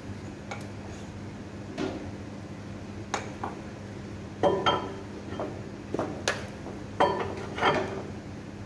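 Irregular metal clinks and knocks, about ten in all and loudest around the middle, as hands work at the mounting flange of a vertical electric motor on a stainless-steel mixer, over a steady low hum.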